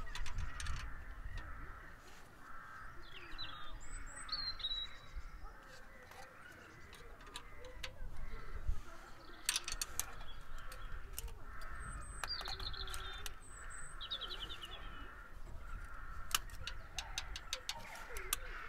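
Birds calling outside, in two bouts about four seconds in and again around twelve seconds. Between them come small metal clicks and taps from hand tools on an engine's valve rocker adjusters, with the feeler gauge being slid through and pulled out.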